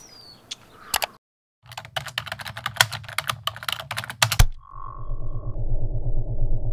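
Fast typing on a computer keyboard, a rapid clatter of keystrokes for about two and a half seconds. Then a short tone and a quick, even low pulsing that runs on past the end.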